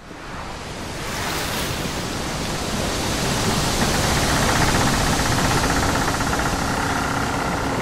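A steady rushing noise fades in over about the first second and holds, with faint steady tones coming in partway through.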